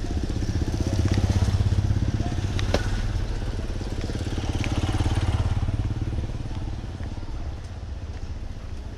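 A motorcycle engine running close by with a fast low putter, loudest a second or two in and again around five seconds, then fading away. A single sharp knock sounds about three seconds in.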